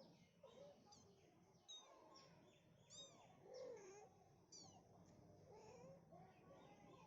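Mother cat calling her kittens with a string of quiet, short meows that bend up and down in pitch, with thin, high chirping calls in between.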